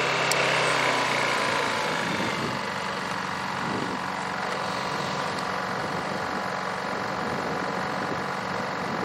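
Honda EU2200i inverter generator's small single-cylinder engine running with no load, slowing to a lower, quieter idle over the first couple of seconds as eco mode takes over, then running steadily.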